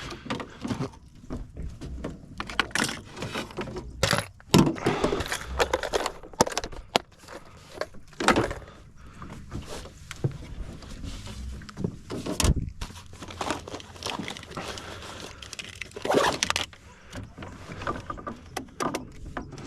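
Handling noise of gear being moved about close to the microphone: irregular clatters, scrapes and knocks, with a few sharper knocks standing out.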